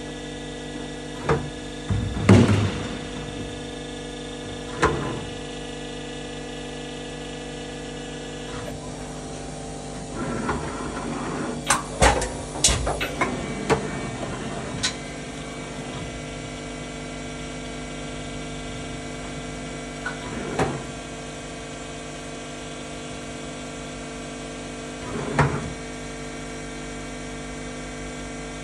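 ENSHU E130 vertical machining center powered up, giving a steady hum of several held tones. Scattered clunks and clicks sound over it, with a busy run of them about ten to fifteen seconds in, during which some of the higher tones briefly drop out.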